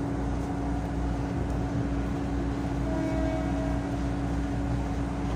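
Passenger train moving slowly, heard from inside the cabin: a steady low rumble with a constant hum, and a faint higher tone briefly a little after halfway.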